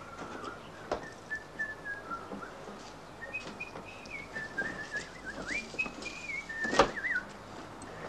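A person whistling a tune: a string of short held notes that step and slide up and down in pitch. A sharp knock sounds near the end.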